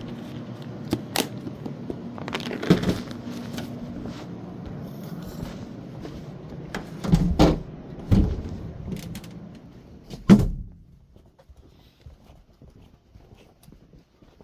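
Household movement noise: scattered knocks and footfalls, then a solid door thud about ten seconds in, after which the background goes much quieter.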